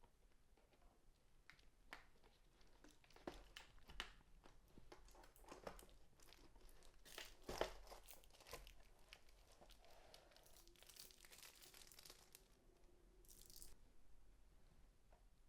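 Faint handling of keyboard packaging: scattered clicks and knocks of cardboard, with rustling and tearing of paper or plastic wrap, the loudest knock about halfway through.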